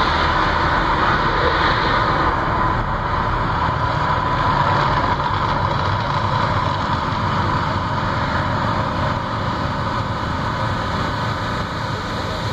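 Mirage volcano show's eruption effects: a loud, steady rumble that slowly fades as the fire dies down.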